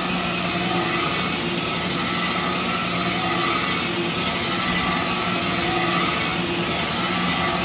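Automatic belt grinding and polishing machine running, its electric-motor-driven abrasive belt grinding the inside of a steel dish head. A steady motor hum with a few held whining tones over an even grinding hiss.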